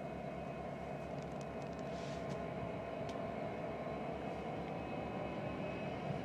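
Union Pacific 4333 diesel-electric locomotive moving slowly, its engine a steady low drone with an even throb, with a few faint clicks from the wheels and cars about a second or two in.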